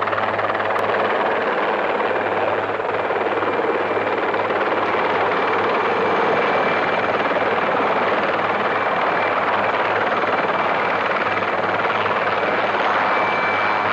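Aérospatiale Alouette III turbine helicopter descending and landing, its rotor and engine making a steady loud noise with a thin high turbine whine.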